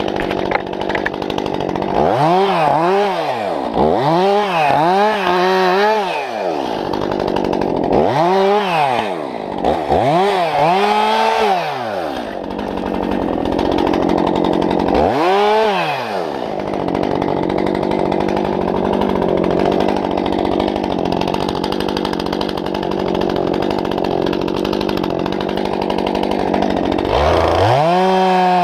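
Two-stroke chainsaw running at idle, revved up and let back down five times in quick blips over the first sixteen seconds. Near the end it is opened up to a high, steady full-throttle pitch as the bar goes into a log to cut it.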